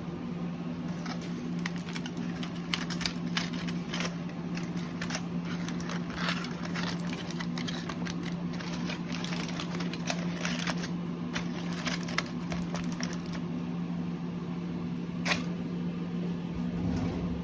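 A steady low machine hum with many light clicks and crackles scattered over it, thickest through the first two thirds, and one sharper click near the end.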